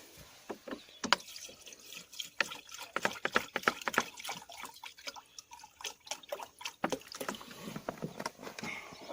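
Water being poured into a cooking pot over cut-up chicken pieces, with many small irregular splashes and drips.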